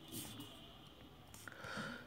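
Quiet pause with faint room tone and a speaker's soft breaths.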